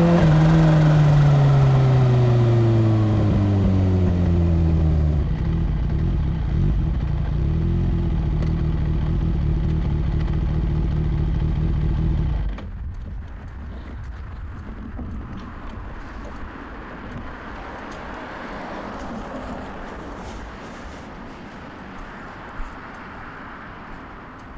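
Kawasaki Ninja H2's supercharged inline-four engine winding down as the bike slows, its pitch falling for about five seconds, then running steadily at low revs. About halfway through, the engine sound stops abruptly, leaving a quieter steady background noise with a single click near the end.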